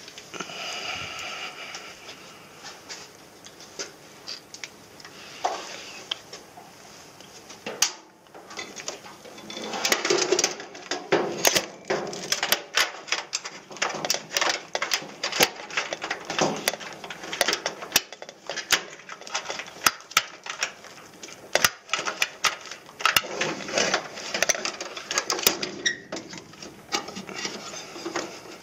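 Hands handling and fitting an inverter board assembly on its sheet-metal mounting plate inside the unit. There is light rustling at first, then from about ten seconds in a dense run of irregular clicks, knocks and rattles of metal panels, brackets and wiring.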